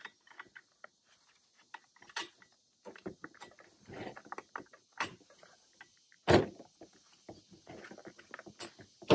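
Clicks, scrapes and knocks of a spark plug wrench being fitted and turned to loosen the spark plug of a Stihl MS-261C chainsaw, with one loud knock about six seconds in.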